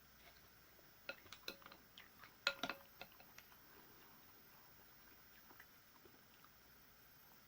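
A few light clinks and taps of eating utensils against a bowl, mostly in the first half, the loudest about two and a half seconds in.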